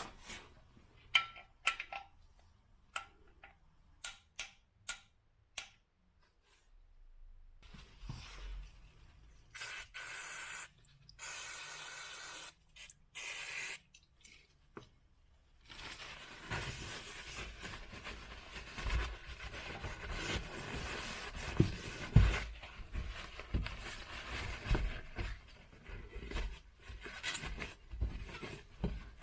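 Hands-on work during a car oil change. A few light clicks come first, then several hissing spray bursts of a second or two each, then continuous rubbing and handling noise with occasional soft knocks.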